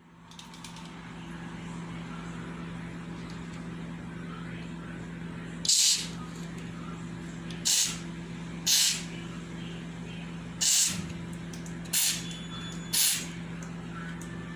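WD-40 aerosol can sprayed in six short hissing bursts onto squeaky cupboard door hinges to lubricate them, over a steady low hum.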